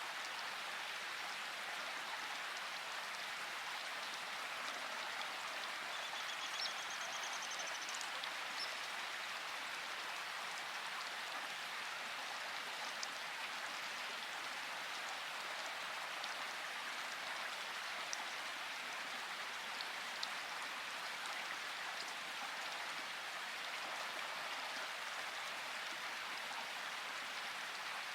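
Steady rain falling, an even hiss with a few sharper drop ticks standing out here and there.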